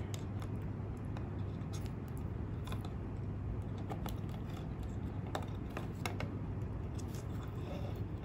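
Small clicks and scratches of fingers handling an Arduino CNC shield's plastic pin headers and plugging in a stepper motor's cable connector, over a steady low hum.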